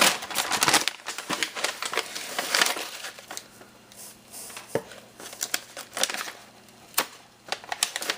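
Packaging being handled, rustling and crinkling for the first few seconds, then quieter handling with a few light clicks and taps.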